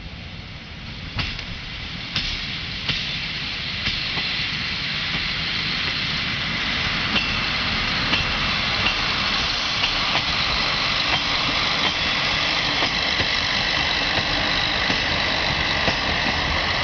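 ČD class 814 Regionova diesel railcar approaching and running past, its engine noise growing louder over the first few seconds and then holding steady. Regular clicks of wheels over rail joints run through it, and a high steady whine comes in about halfway through.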